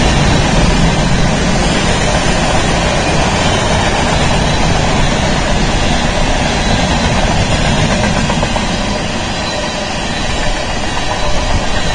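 Mixed freight train of tank cars, covered hoppers and boxcars rolling past at speed: a loud, steady rumble of steel wheels on rail, with a few sharper knocks near the end.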